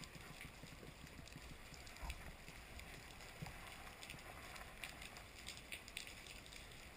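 Faint underwater ambience picked up through a camera's waterproof housing: a steady low rumble and hiss with scattered sharp clicks, and a dull knock about two seconds in.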